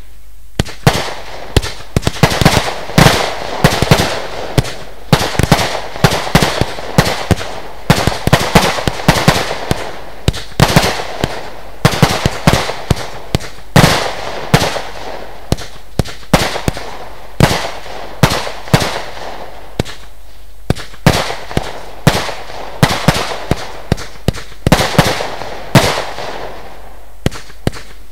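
Lesli Dezemberfest 512-shot compound firework cake firing: a fast, continuous string of shots and aerial bursts, a few bangs a second, with a brief lull about two-thirds through.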